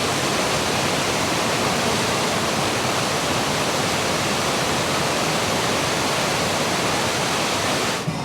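Steady rush of falling water from a fountain or waterfall, close by. It cuts off suddenly near the end.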